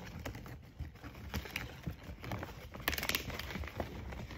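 Woven plastic rice sack rustling and crackling as it is folded and creased by hand, with a louder burst of crinkling about three seconds in.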